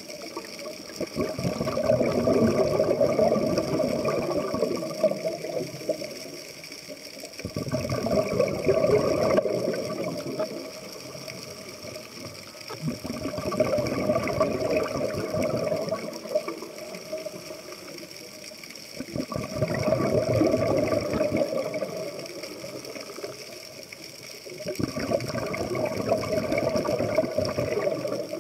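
Scuba regulator breathing underwater: bubbling, gushing exhalations about every five to six seconds, with quieter inhalations between them.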